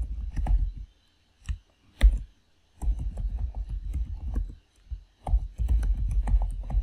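Typing on a computer keyboard: quick runs of keystrokes broken by short pauses, with a couple of single key presses in between.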